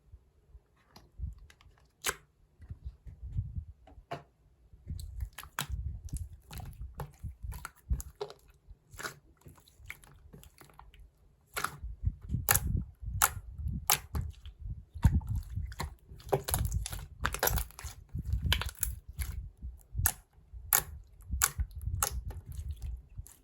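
Close-up biting and chewing of crunchy food: irregular crisp crunches over low thuds, getting busier and louder about halfway through.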